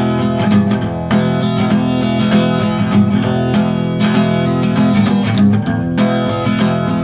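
Acoustic guitar strummed in a steady rhythm: the instrumental intro to a song, before any singing.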